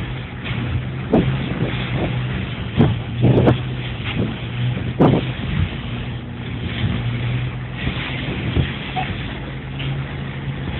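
Steady low engine drone of a ship under way, with rushing water along the hull and several sharp thumps, heard through a basic phone microphone.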